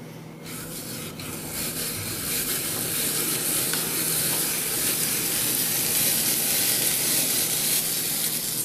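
Hand-cranked apple peeler, corer and slicer working an apple: the peeling blade shaves off the skin while the coring and slicing blade cuts through the flesh, making a continuous scraping hiss. It builds over the first two seconds or so and then holds steady.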